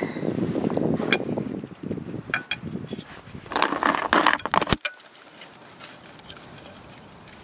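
Handling noise as vegetables are packed by hand into an aluminium Afghan kazan: rustling with a few light clicks and clinks against the pot. A louder rustle near the middle ends in a sharp click just before five seconds in, and it is quieter after that.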